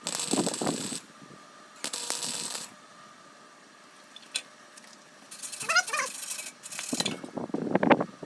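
Aerosol spray paint can spraying in short hissing bursts, with the rattle of the mixing ball as the can is shaken. A short wavering squeak comes about six seconds in.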